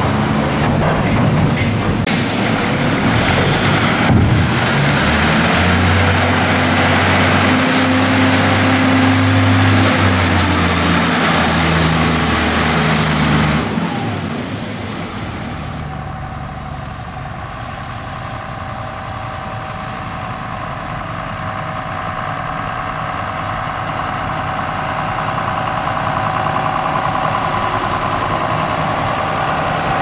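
Loud, steady machinery noise with a low engine drone that stops about thirteen seconds in. After a change partway through, a John Deere tractor pulling a dump trailer across wheat stubble is heard, its engine running steadily and growing louder as it comes closer.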